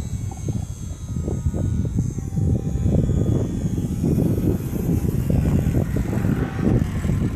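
Super Cub floatplane's propeller and engine running, with thin steady high tones over a heavy, gusting low rumble of wind buffeting the microphone.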